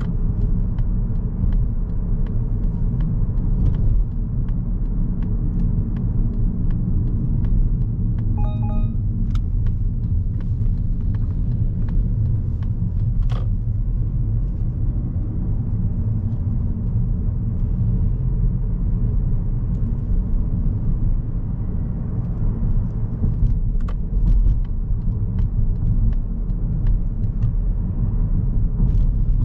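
Steady low rumble of a 2022 Mazda3 hatchback driving on city streets, heard from inside the cabin: tyre and road noise with its 2.0-litre SKYACTIV-G engine. A short beep sounds about eight seconds in.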